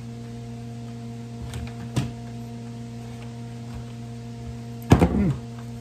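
Steady low hum under a few short handling knocks. The loudest is a clatter just before five seconds in, as a plastic water bottle is picked up from the table.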